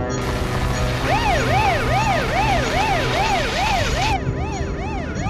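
Police car siren switched on, wailing up and down in quick, even sweeps about twice a second, starting about a second in. A steady hiss runs under it until about four seconds in.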